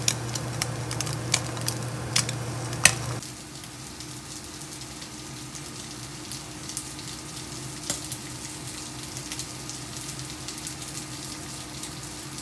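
Egg frying in a nonstick pan: a steady sizzle with scattered sharp pops over a low steady hum. About three seconds in, the sizzle cuts off abruptly to a quieter steady hiss with a few faint clicks.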